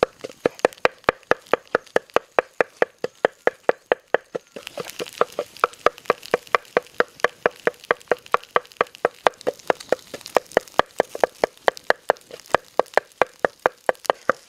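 Steady rhythmic knocking, about four strokes a second, of a wooden pestle pounding in a clay mortar, each stroke with a short ringing note. A faint hiss joins behind the knocks about four seconds in.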